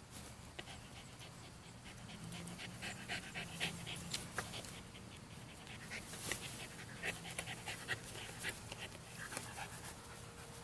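Small dog panting while chewing a rubber bone toy, with short, irregular clicks and rustles of dry grass.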